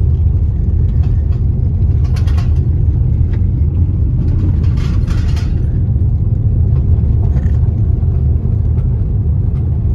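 Car cabin road noise while driving on an unsealed dirt road: a steady low rumble of tyres and engine. Two brief louder rushes of higher noise come about two and five seconds in.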